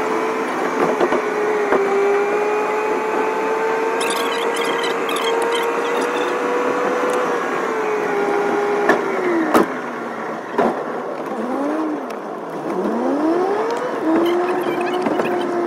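A car driving, heard from inside the cabin: steady road and engine noise with a held whining tone. About ten seconds in the whine falls and swoops down and up in pitch twice before settling again, and two sharp clicks come just before the dip.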